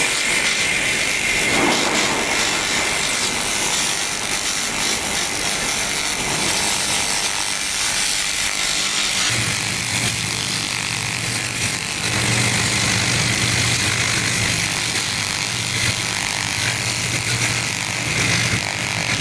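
Handheld fiber laser cleaner (SUP22C system) stripping rust off a steel square tube: a loud, steady hiss with a high whine over it. A low hum joins about halfway through.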